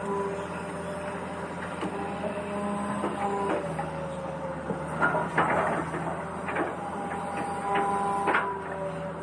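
Small geared electric motors of toy construction vehicles whining at several steady pitches that shift up and down as they start and stop. Plastic clacking and rattling breaks in about five seconds in and again near the end.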